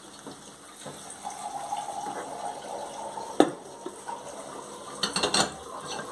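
Water running from a kitchen tap into a container being filled, with one sharp knock about three and a half seconds in and a brief clatter near the end.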